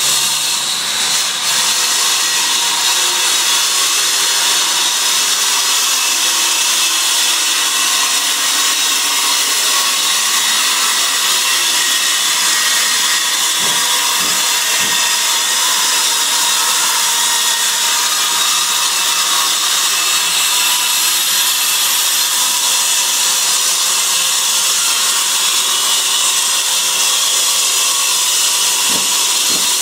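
Electric wall chaser grinding a groove into a masonry wall, running steadily under load, with a dust-extraction vacuum drawing through its hose.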